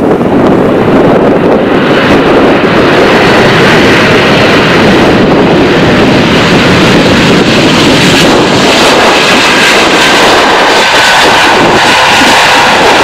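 Jet airliner's engines, loud and steady, as it passes on its landing approach. After about two seconds the sound grows brighter and higher, and a faint whine shows in the last few seconds.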